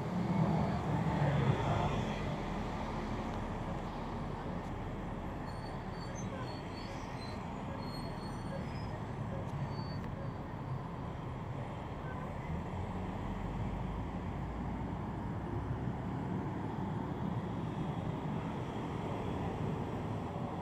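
Steady road traffic noise from cars and buses running along a busy multi-lane city road, a little louder in the first two seconds, with a few faint high squeaks in the middle.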